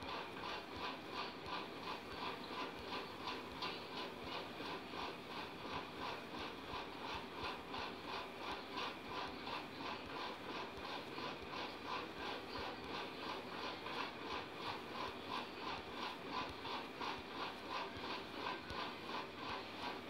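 Steady rhythmic mechanical ticking, about two to three ticks a second, repeating evenly throughout.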